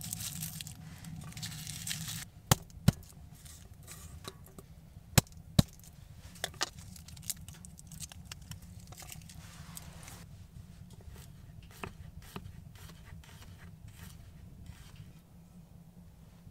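Garlic cloves being peeled by hand: papery skins crinkling and tearing, densest for the first couple of seconds. After that it goes quieter, with a few sharp clicks in pairs and scattered small ticks.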